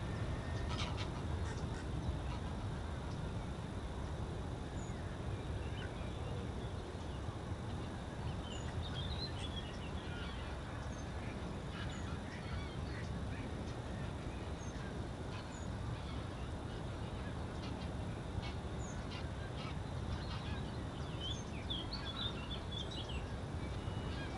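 Greylag geese honking in flight, in scattered clusters of calls about eight seconds in and again near the end, over a steady low rumble.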